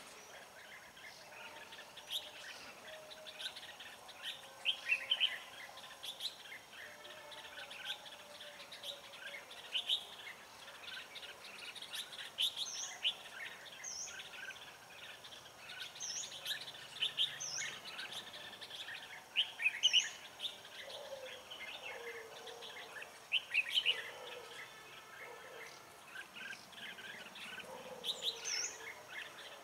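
Red-whiskered bulbuls chirping in short, repeated phrases, with a thin high note repeated every second or two in the second half.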